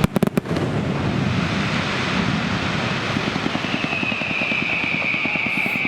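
Fireworks: a quick cluster of four or five sharp bangs at the start, then a continuous rushing, crackling noise, with a steady high whistle-like tone joining about two-thirds of the way through.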